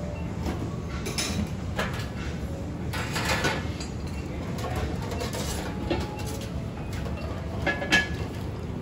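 Steady low rumble of a large steel rice-roll (bánh cuốn) steamer boiling hard under its cloth top. A few sharp metal clinks of the steamer and utensils break in, the loudest near the end.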